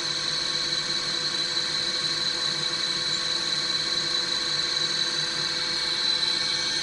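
Drill press's newly fitted electric motor running steadily off a frequency converter (VFD), fed about 63 V and drawing about 1.2 A, with a constant high-pitched whine over an even hum.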